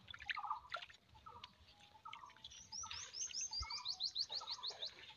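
Birds calling: scattered short chirps, then a fast run of high chirping notes, about six a second, through the second half.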